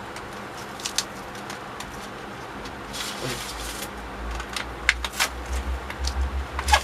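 Handling noise from small stainless steel bead-making tools, mandrels and a bead rake: scattered light clicks and a brief rustle, with a low rumble from about three seconds in.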